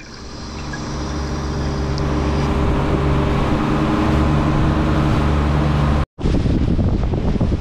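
A dive boat's engine runs steadily under way, a low hum over the rush of its wake, fading in over the first couple of seconds. About six seconds in the sound cuts out for an instant, then comes back as wind buffeting the microphone over the water noise.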